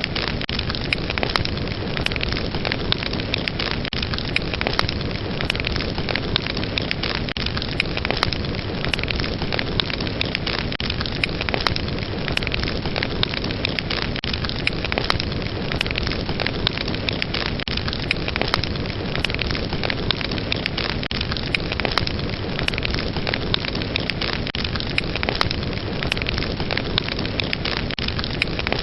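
Wood fire burning in a fireplace, with steady dense crackling and frequent sharp pops throughout.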